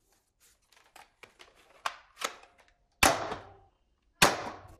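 Red-and-black plastic toy foam-dart blaster: light clicks and rattles as darts are pushed into its cylinder. Then two loud, sharp snaps from the blaster's mechanism, about a second apart.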